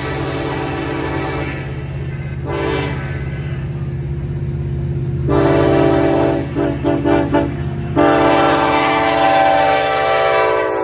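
Norfolk Southern freight locomotive sounding its air horn as it approaches: a blast that ends early, a short blast, then two long blasts, the first breaking into quick stutters near its end. A steady diesel engine rumble runs underneath and grows louder as the train nears.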